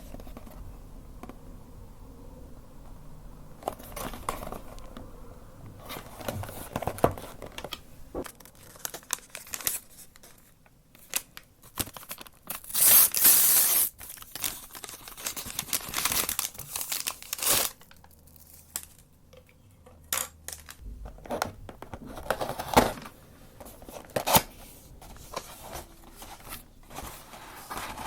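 Food packaging being crinkled and torn open by hand, in scattered crackles with one longer, louder tearing stretch about halfway through.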